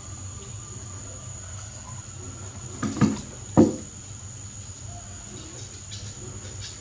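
Two sharp thumps about half a second apart, about three seconds in, as a small macaque lands on a wooden table, over a steady high-pitched whine and a low hum.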